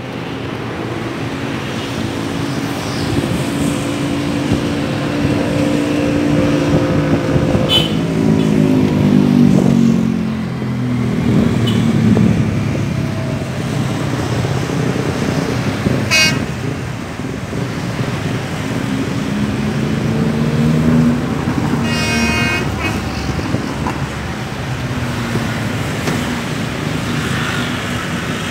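Road traffic and motorcycles running alongside a passenger train as it pulls away, with engine notes rising and falling as vehicles pass. A short horn toot sounds about three-quarters of the way through.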